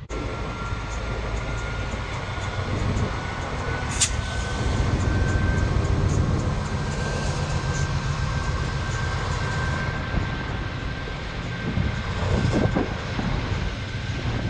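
Pacific National NR-class GE diesel-electric locomotives pulling a heavy freight train away from a stop and rolling past, with a steady diesel rumble that grows louder as the lead locomotive draws level. A thin high whine runs over it, stepping up slightly about four seconds in, with a sharp knock at the same moment.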